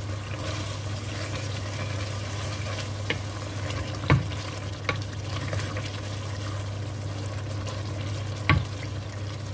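Wooden spoon stirring a simmering tomato stew in a square non-stick pan, the stew sizzling, with a few sharp knocks of the spoon against the pan, the loudest about four seconds in and near the end. A steady low hum runs underneath.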